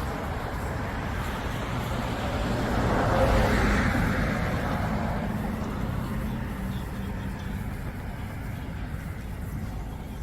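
Road traffic: a vehicle passing close by, its engine and tyre noise swelling to a peak about three to four seconds in and then slowly fading.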